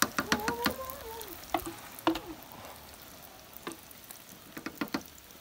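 Wooden spoon knocking and scraping against a steel cooking pot while egg-battered fish is stirred in tomato broth: sharp knocks, a quick cluster in the first second, then scattered ones. Under them runs a steady sizzle of fish frying in oil.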